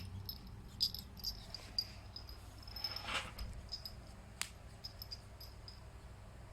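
A nestling bird cheeping: short, high peeps in quick, irregular runs that thin out after about four seconds. There is a brief rustle about three seconds in and a single sharp click shortly after.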